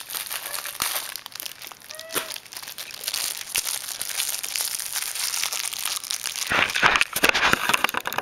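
Plastic Twinkie wrapper crinkling as it is handled and pulled open, with dense crackling that is loudest near the end.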